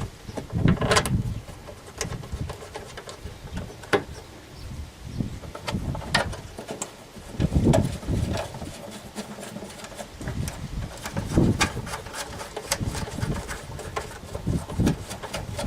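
Hand work on plastic reservoir tanks and their fasteners in a van's engine bay: irregular clicks, knocks and rattles of plastic and tools, with a few louder thumps.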